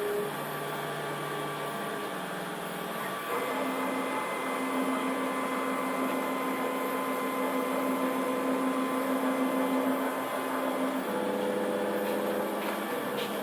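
CNC engraving machine's axis motors driving the machine back to its home position: a steady motor whine that steps to a new pitch a few times as the axes change moves.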